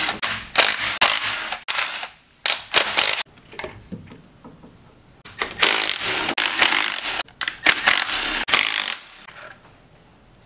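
Cordless ratchet running out the valve cover bolts on an LS V8: several short runs in the first three seconds, then one longer run of about three seconds past the middle.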